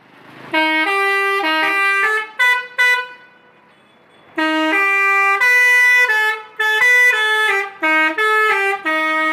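Indonesian 'telolet' bus horn, a multi-tone air horn, playing a melody in short, stepped notes. It plays two phrases with a pause of about a second in the middle.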